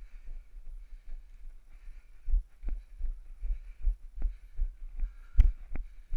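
Footfalls of someone walking while wearing or carrying a camera: a steady run of low thumps, about two or three a second, picked up through the camera mount. The strongest thump comes about five and a half seconds in.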